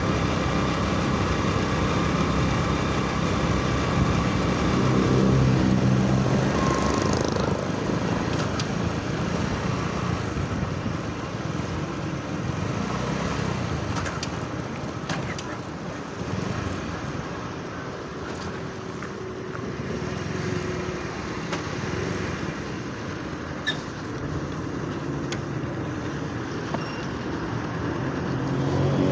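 A vehicle's engine running as it drives along a road, heard from on board, with steady road and wind noise. The engine's hum is clearest in the first few seconds, and the sound eases a little in the middle before rising again near the end.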